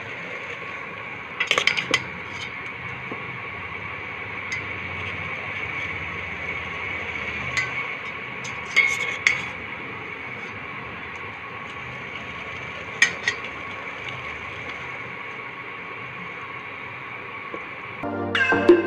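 A metal spatula scrapes and clinks against a steel pot a few times as instant noodles are stirred in a little liquid, over a steady kitchen hum. Music with a beat starts near the end.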